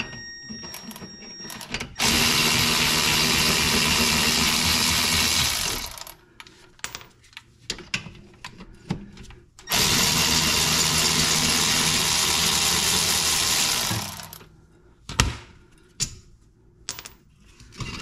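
Power ratchet running in two bursts of about four seconds each, spinning out the rear brake caliper bracket bolts, with clicks and knocks of tool handling between the runs.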